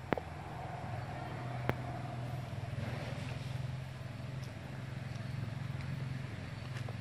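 Steady low hum of a running engine, with two sharp clicks in the first two seconds.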